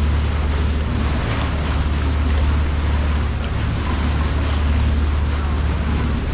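The Arrowhead Queen tour boat under way: its engine gives a steady low drone, with water rushing along the hull and wind on the microphone.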